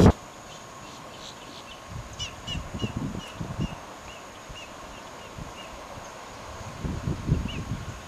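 A bird calling a series of short, high chirps, about three a second, that starts about two seconds in and trails off, with one more chirp near the end. Low thumps from the camera being handled come with the first calls and again near the end.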